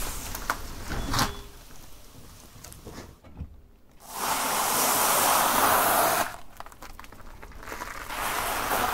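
Car tyre rolling over nests of dry thin noodles, crushing them in a dense crunch that lasts about two seconds, starting just under halfway through.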